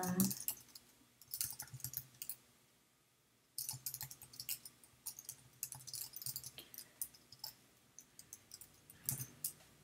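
Typing on a computer keyboard: a run of quick, irregular key clicks. They pause briefly about three seconds in, then carry on.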